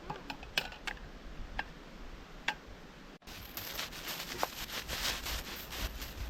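A few separate sharp clicks and taps, then, after a sudden cut about three seconds in, steady rustling with many small crackles.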